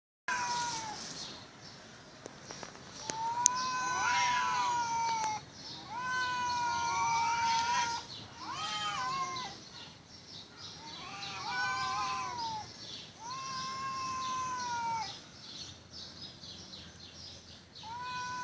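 Two cats yowling at each other in a fight standoff: a series of long, drawn-out, wavering howls of one to two seconds each, with the two voices sometimes overlapping.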